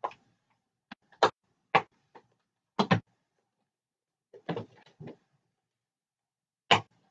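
Irregular sharp knocks and clicks, about a dozen, some in quick pairs and small clusters: a clear plastic case of rubber stamps being handled and opened.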